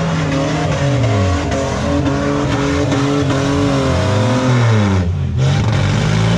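Several speedway cars running on a dirt oval track, their engines revving up and down at once so that the pitches rise and fall over one another.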